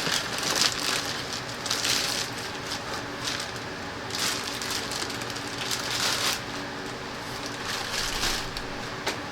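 Packing material rustling and crunching in irregular bursts as parts are pulled out of a shipping box.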